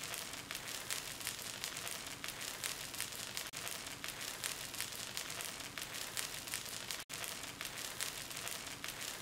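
Semolina batter cooking in a lightly oiled nonstick pan over a gas flame: a soft, steady sizzle with many small crackles and pops.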